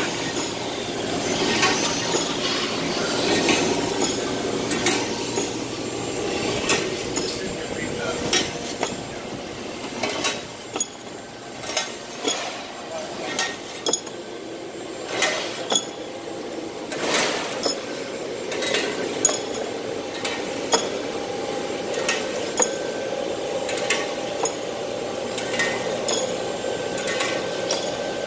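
Abplanalp double-headed through-feed grinder dry-grinding metal-backed brake pads: a steady machine hum under irregular sharp metallic clinks and clatters as the pads move through and drop down the metal discharge chute.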